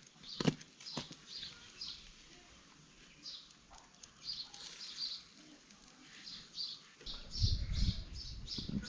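Birds chirping repeatedly in short, high notes, with a few sharp knocks in the first second and a low rumble coming in near the end.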